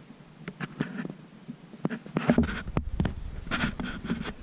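Old paper rustling and crinkling as it is pulled from the open firebox of a cast-iron stove, with scattered sharp clicks and knocks from handling. It starts about half a second in and gets busier and louder after about two seconds.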